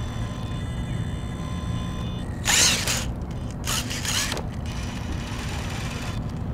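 RC rock crawler's brushless motor, a Castle 2850kv on a Mamba X ESC, driving the truck at crawling speed. A faint steady whine is followed by two short, louder bursts of drivetrain and gear noise about two and a half and four seconds in.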